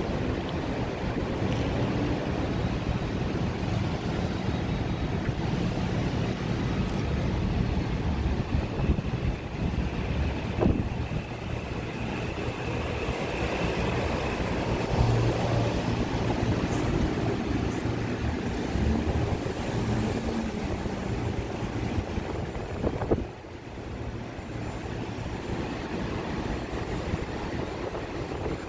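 Wind buffeting the microphone over a steady rumble of distant city traffic and trains. A sharp click comes about eleven seconds in and another about twenty-three seconds in, where the rumble drops somewhat.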